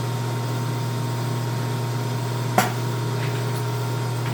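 FMB Phoenix mitering band saw running with a steady mechanical hum, its motor and hydraulic feed in operation. A single sharp click sounds about two and a half seconds in.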